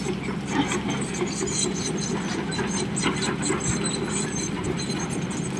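Hydraulic excavator diesel engines running steadily, with scattered short metallic clinks and scrapes over the engine hum.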